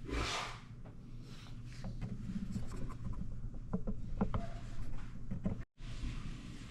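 Faint scattered clicks and taps over a steady low hum, with a sudden brief gap in the sound near the end.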